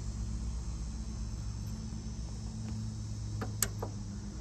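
Steady chirring of outdoor insects over a low, steady hum. About three and a half seconds in come a few light clicks of a metal bracket against the truck's windshield frame.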